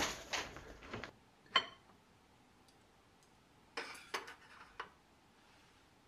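Ceramic dishes and chopsticks clinking: a short clatter at the start, one sharp ringing clink a little later, then a quick run of four or five light clinks and knocks around the four-second mark.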